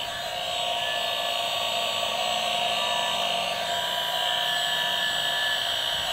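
Toy Husqvarna leaf blower's small battery motor whirring with a steady high whine, its pitch shifting a little just past halfway.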